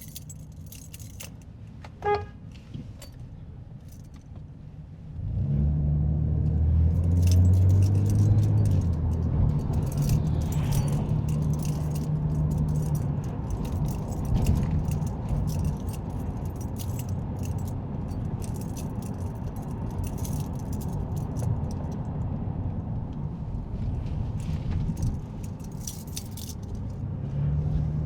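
Inside a moving vehicle, heard from the cabin: a short electronic chime about two seconds in, then an abrupt rise in engine and road noise about five seconds in, which settles to a steady low drone. Keys jangle and rattle throughout.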